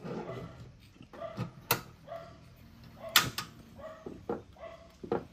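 About four sharp knocks and clicks of things handled on a wooden table, the loudest about three seconds in, with faint short squeaks between them.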